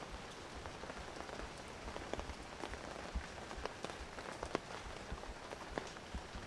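Steady rain falling, with large drops striking hard surfaces close by as sharp, separate taps, most frequent through the middle.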